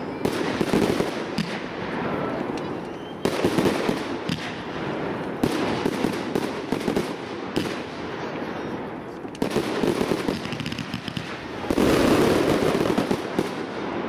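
Display fireworks going off in rapid succession: a continuous barrage of bangs and crackles from aerial shells, heaviest near the end.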